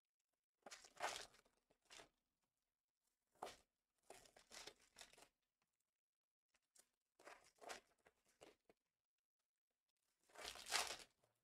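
Clear plastic wrapping being torn and crumpled by hand in about five short bursts, with silent gaps between them. The loudest burst comes near the end.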